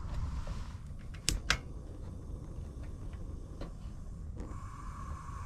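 Two sharp clicks about a quarter-second apart, over a low steady rumble. A steady higher hum comes in near the end.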